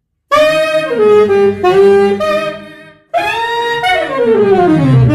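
Digital saxophone (electronic wind instrument) playing a saxophone tone in two phrases. The first phrase steps between held notes and stops about three seconds in. The second starts at once and slides down in pitch near the end.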